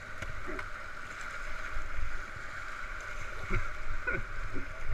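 Rushing whitewater around a paddled raft, with paddle strokes and spray splashing close by in several louder surges.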